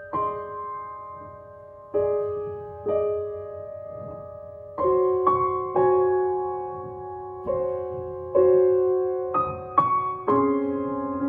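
Grand piano played slowly: chords struck about once a second or so, each left to ring and fade before the next.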